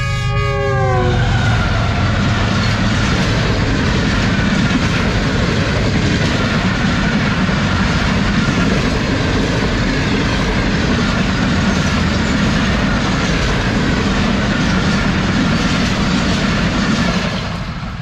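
Pakistan Railways Khyber Mail express passenger train passing close by at speed. The locomotive's horn drops in pitch as it goes by and cuts off about a second in. Then comes a long, loud rush of coaches with wheels clattering over the rails, which falls away near the end as the last coach pulls off.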